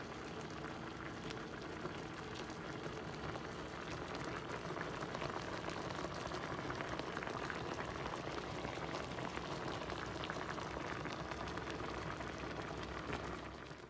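Chicken pieces and chicken livers simmering in brown gravy in a pot, bubbling and popping steadily with many small rapid pops.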